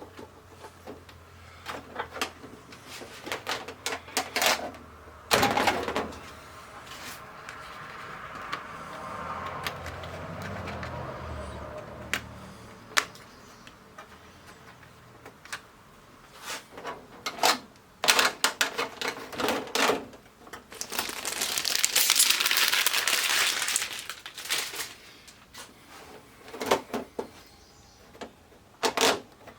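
Scattered clicks and knocks of the TV's plastic and metal parts being handled inside the opened set, with a longer rustle for a few seconds past the two-thirds mark.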